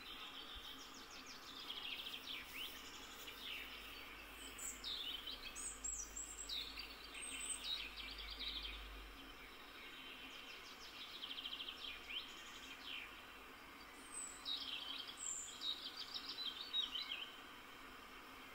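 Small songbirds singing in a meadow, several short phrases of quick falling notes and trills with pauses between them, over a faint steady background hiss.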